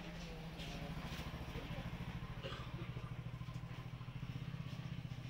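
An engine idling: a low, steady putter with a fast, even pulse.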